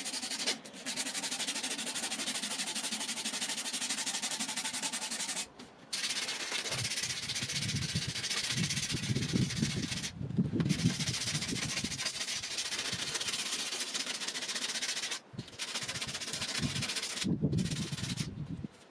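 Hand-sanding a wooden knife handle with abrasive paper: a steady scratchy hiss of sandpaper rubbing back and forth over the wood, broken by a few brief pauses.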